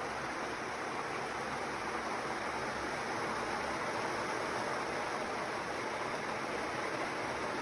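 Kadıoğlu 180ED walnut hulling machine running: a drum load of green walnuts churning against its steel abrasive lining under a water spray, heard as a steady, even wash with no rhythm.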